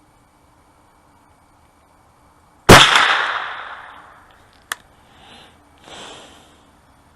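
A single rifle shot about three seconds in, its report echoing away over about a second and a half. A sharp click follows about two seconds later, then two faint dull thuds near the end.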